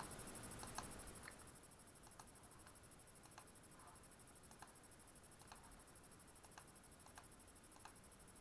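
Faint button clicks about once a second, irregularly spaced, each one picking a letter on an on-screen keyboard, over a low hiss of room tone.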